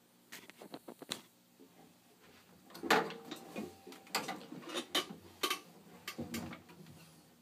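Scattered knocks, clicks and rustles of a person sitting down on a chair and settling in with an acoustic guitar, busiest about halfway through.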